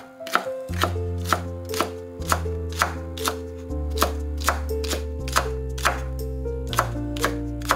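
Kitchen knife slicing thick green onion into rounds on a wooden cutting board: evenly spaced crisp knife strokes landing on the board about twice a second.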